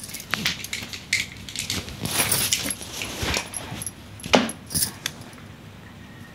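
A cat pouncing on and wrestling a dangled cloth strip on a hard floor: scattered scratching, rustling and light taps, with one sharp knock a little after halfway.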